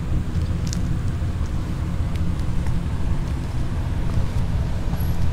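Wind buffeting the camera microphone: a steady low rumble, with a few faint ticks over it.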